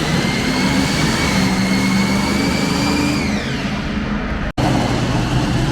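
Pulling tractor's engine running loud at full power during a tractor pull, with a high whine that climbs slightly and then drops in pitch about three seconds in. The sound cuts out for an instant about four and a half seconds in.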